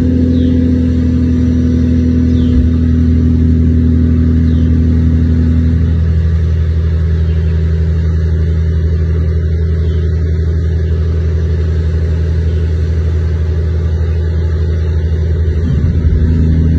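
Dump truck's diesel engine running with a steady low drone while its hydraulic hoist raises the loaded tipper bed.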